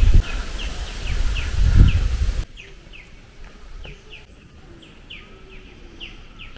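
Wind buffeting the microphone as a loud low rumble that cuts off suddenly about two and a half seconds in. All the way through, a bird repeats short falling chirps, about two a second.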